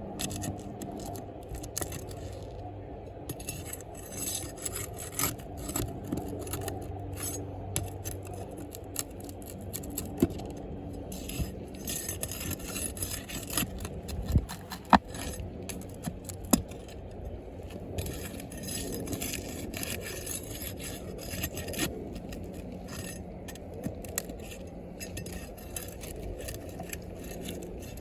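Scraping of damaged asphalt roof shingles being worked loose and removed, with scattered sharp clicks.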